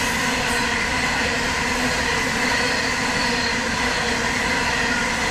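Freight train of hopper wagons rolling steadily past at speed, with a continuous rumble and rattle of wagon wheels on the rails.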